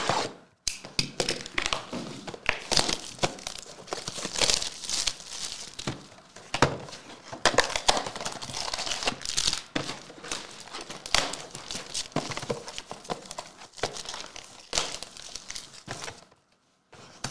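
Plastic wrapping on trading card boxes crinkling and tearing, with occasional light knocks. It pauses briefly near the end.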